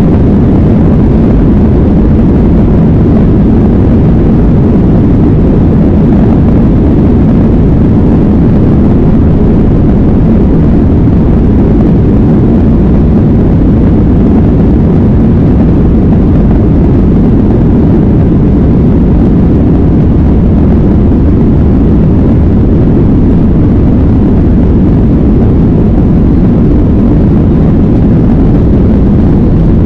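Jet airliner's engines at takeoff thrust heard from inside the cabin, a loud, steady low rumble mixed with the rumble of the wheels on the runway during the takeoff roll.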